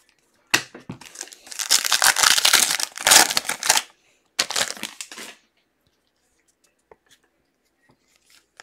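Foil trading-card pack being torn open and its wrapper crinkled. There is a sharp snap about half a second in, then about two seconds of dense crackling, and a shorter crinkle near the middle.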